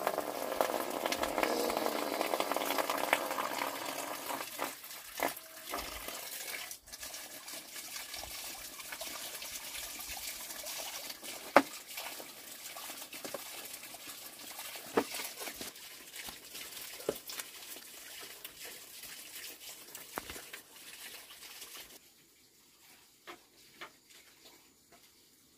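A thin stream of water from an overhead pipe running into a plastic basin and onto a slatted bamboo floor, loudest at the start, with occasional sharp knocks and splashes as the basin is handled and tipped out. The water sound drops away near the end.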